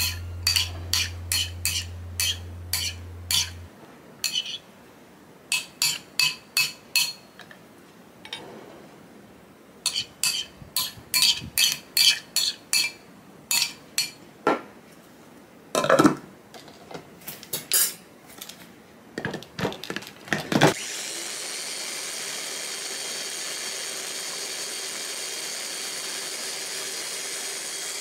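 A metal spoon clinks and scrapes against the glass bowl of a small electric food chopper in quick irregular runs of taps. About three-quarters of the way through, the chopper's motor starts and runs steadily, puréeing the avocado and yogurt mixture.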